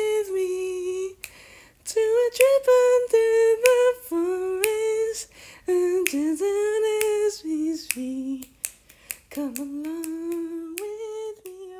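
A single voice humming a wordless tune in held, sliding notes, with short pauses between phrases. Several sharp clicks come through alongside it.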